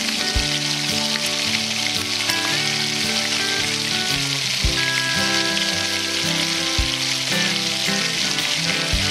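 Chicken wings sizzling steadily as they fry in oil in a nonstick pan, being turned with tongs and a slotted spatula, with a few soft knocks.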